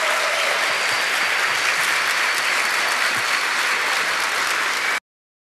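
Audience applauding steadily; the applause cuts off abruptly near the end.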